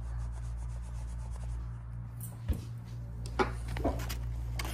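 Steady low hum with a few soft, brief rubbing and knocking noises of handling.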